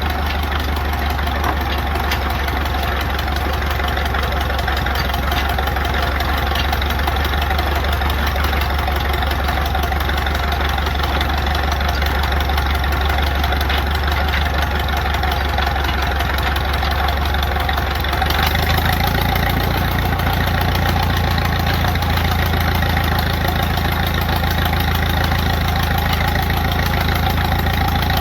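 Allis-Chalmers 6-12 tractor's four-cylinder LeRoi engine running steadily at idle, freshly rebuilt and not yet broken in. About two-thirds of the way through its low note shifts and gets slightly louder, as the engine speed changes.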